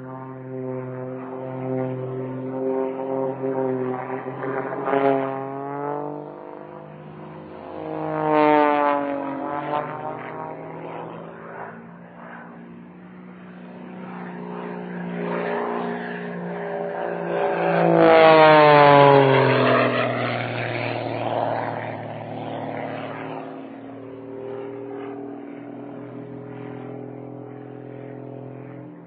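Propeller plane engine during aerobatics, its pitch and loudness swelling and falling as the plane manoeuvres. It passes close twice with a quick drop in pitch, about eight seconds in and, loudest, about eighteen seconds in. Old, muffled recording with no high end.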